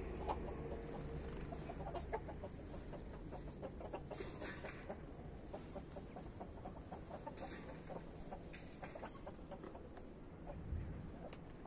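Faint farmyard sounds: chickens clucking in short, scattered notes, and dairy cows feeding at a trough, with a brief rustle of feed twice.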